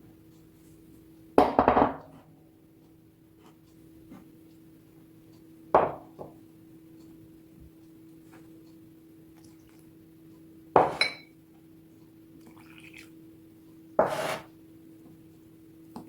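Kitchenware clattering and clinking in four short bursts a few seconds apart, as bowls, utensils and ingredients are handled for the dough. A faint steady hum runs underneath.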